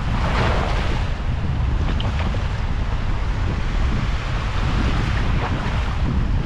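Wind buffeting the microphone, a steady low rumble, over the wash of waves on the shore.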